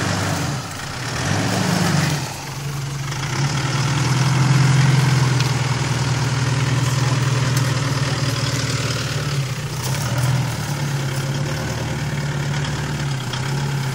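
Mitsubishi Triton 4x4 ute's engine running at low, steady revs as it crawls over rocks and sand, with a brief rise in revs about a second or two in.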